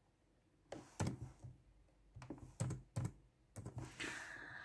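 A few light clicks and taps at irregular intervals, small objects handled on a tabletop, with a faint hiss near the end.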